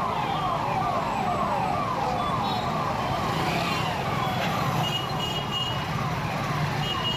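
Police vehicle siren sounding in a fast repeating pattern, each cycle a quick falling sweep, about two a second.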